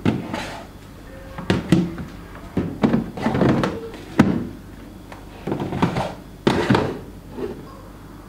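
A series of thuds, knocks and brief clattering as household items are handled and set down, with a door-like thunk among them.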